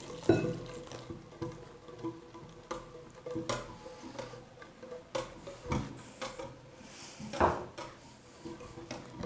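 Wire whisk stirring a runny egg-and-yogurt batter in a glass bowl, with irregular clinks of the metal whisk against the glass. Soft background music runs under it.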